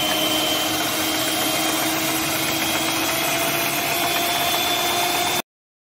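Electric hand mixer running steadily with its twin beaters whipping fresh cream in a glass bowl, a motor whine whose pitch creeps slightly upward. The sound cuts off suddenly near the end.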